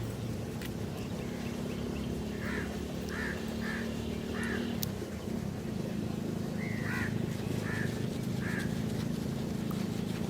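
A series of short animal calls, four in quick succession and then three more after a brief pause, over a steady low hum.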